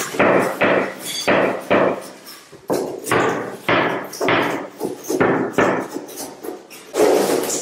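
Hand-held block worked against ceramic floor tile and skirting tile in repeated short strokes, roughly two a second with uneven pauses.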